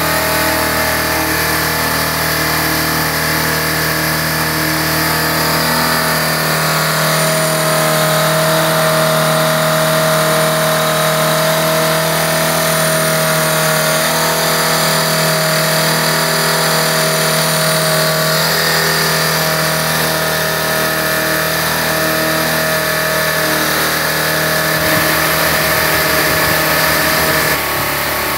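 Electric motors of a homemade four-rotor collective-pitch drone spinning its rotors: a steady machine hum with several held tones, a little quieter near the end.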